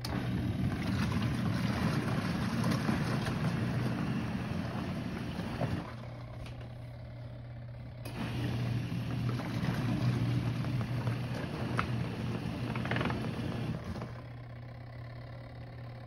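Intexca mini portable washing machine running its wash cycle: the motor hums steadily while the agitator churns water and clothes for about six seconds, goes quieter for about two seconds, churns again for about six seconds, and goes quiet again near the end.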